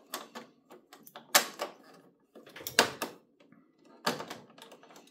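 Plastic parts inside a laser printer's opened fuser area clicking and knocking as they are pushed and snapped into place by hand: about four sharp clicks roughly a second apart, with softer handling rattles between them.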